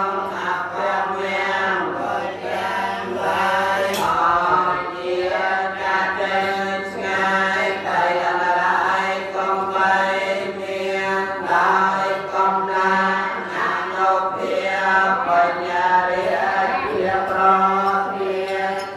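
Voices chanting a Buddhist recitation on a steady, level pitch, with an even syllable-by-syllable rhythm.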